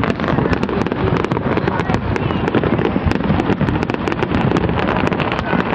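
Continuous fireworks barrage: many rapid sharp cracks and bangs overlapping on a constant low rumble, through a phone's microphone.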